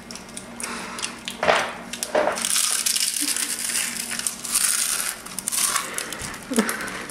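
A big, crispy potato chip being bitten and chewed close up. A few separate sharp cracks come first, then about two seconds in a dense run of crackling crunches lasts for around three and a half seconds.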